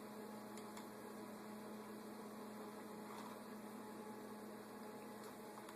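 Faint steady low hum over a light hiss: quiet room tone.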